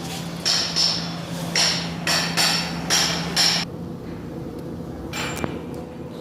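A hammer striking metal: a run of about seven sharp, ringing strikes, roughly two a second, that stops about three and a half seconds in.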